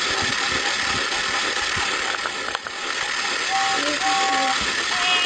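Battery-powered toy train running on its track: a steady whirring rattle from the motor and wheels, dipping briefly about halfway through, with a few short steady tones in the second half.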